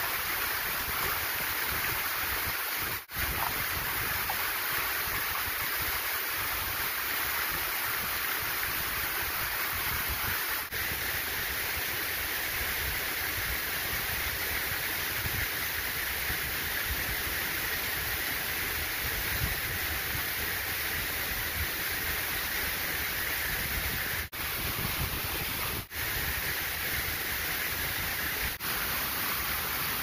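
Waterfall rushing steadily, a dense hiss of falling water. The sound drops out for an instant a few times.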